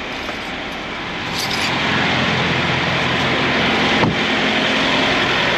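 Semi-truck's diesel engine idling steadily, muffled at first and getting louder about a second and a half in as the cab door opens. A single sharp knock about four seconds in.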